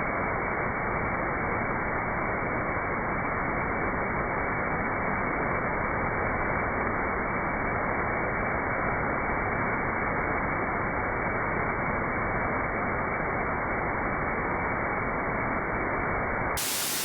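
Waterfall: the steady, even noise of falling water, with no change in level. Just before the end it turns brighter and hissier.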